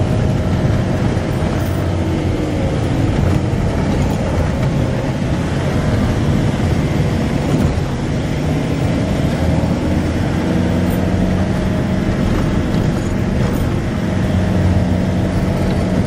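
Steady engine and road noise of a moving vehicle, heard from inside the cabin with the window open.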